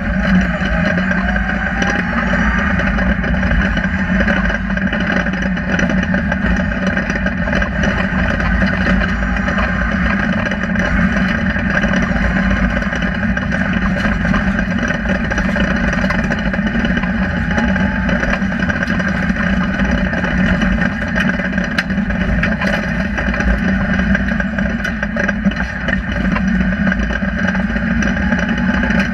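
Rally car engine running hard at speed, heard from inside the cabin, its note fairly steady with only small rises and falls, over road and tyre noise.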